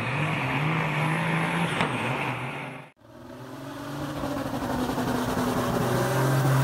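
Semi-truck diesel engines running hard under load, stacks pouring black smoke. About three seconds in the sound cuts off abruptly and another semi's diesel engine fades in and builds steadily, revved high during a tyre-smoking burnout.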